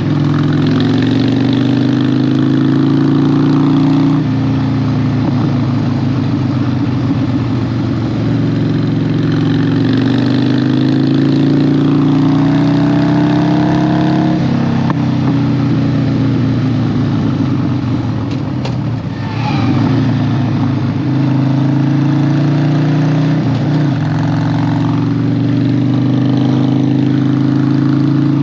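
Harley-Davidson 1200's V-twin engine pulling under throttle while riding, its pitch climbing slowly and dropping back at gear changes about 4 and 14 seconds in. Around 19 seconds the throttle eases off briefly, and a quick rev rises and falls a few seconds later.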